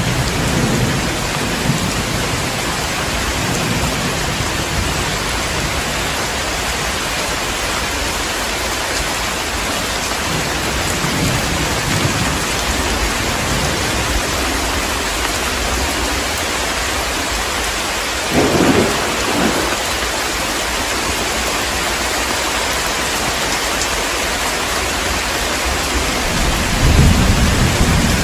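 Heavy rain falling steadily in a thunderstorm, with rolls of thunder rumbling low. There is a sharper double crack about two-thirds of the way through, and a swelling rumble near the end.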